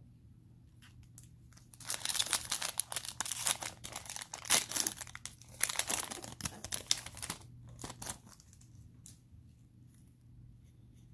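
Cellophane wrapper of a Panini Mosaic football cello pack being torn open and crinkled by hand. There is dense crackling from about two seconds in for some five seconds, then a few faint rustles.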